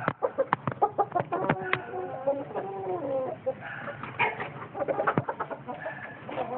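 Chickens clucking, several short wavering calls from the hens and roosters, over a run of sharp taps in the first two seconds and a few more about five seconds in.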